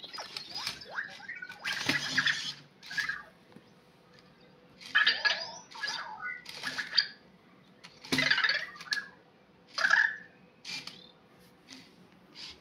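Anki Vector robot answering a fist-bump request: a series of short, chirpy electronic robot sounds mixed with the whir of its small motors as it drives off its charger, with short quiet gaps between bursts.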